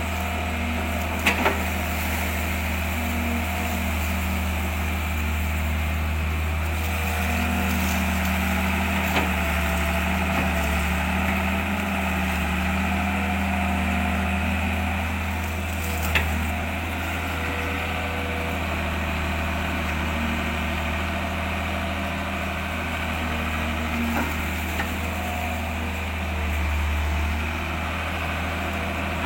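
A motor or engine running steadily with a low hum, with a few short sharp clicks or knocks.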